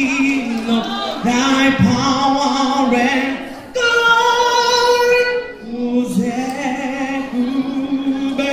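A woman singing into a microphone over a PA, her melody holding one long high note about four seconds in.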